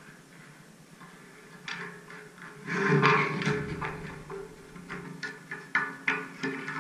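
Background music with held notes and sharp percussive knocks.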